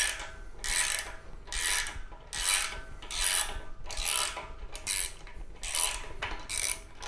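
Ratchet wrench turning the nut on a threaded-rod puller that is drawing a jackshaft bushing out of a Jaguar V12 block: about nine rasping strokes roughly 0.8 s apart. The grinding comes from the dry, unoiled threads of the rod galling under the heavy pulling force.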